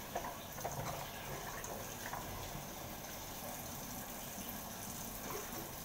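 Kitchen tap running steadily into a stainless-steel sink while watercress is rinsed under the stream.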